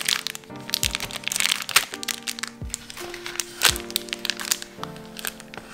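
Plastic zip-lock bags crinkling and crackling under fingertips as they are pressed and rubbed, with quick sharp clicks, over background music.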